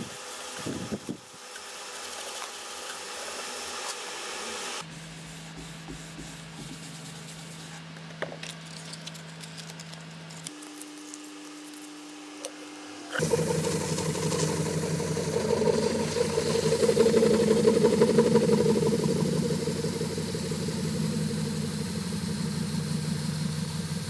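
Woodturning lathe motor running with a steady hum that jumps to a different pitch twice at abrupt cuts. About 13 seconds in, a louder, rough rubbing of a tool against the spinning pine bowl joins it and continues to the end.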